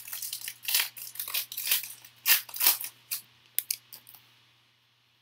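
Foil wrapper of a 2019 Panini Rookies and Stars football card pack being torn open and crinkled by hand, a rapid run of crackling rips for about three seconds, followed by a few light clicks about four seconds in.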